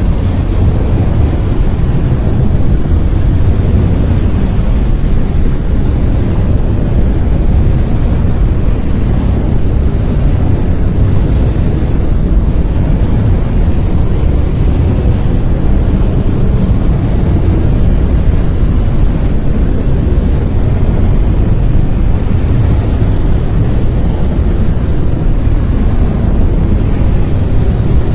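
Brown noise: a steady, loud, deep rumbling hiss, strongest in the lows and thinning toward the highs, with no change throughout.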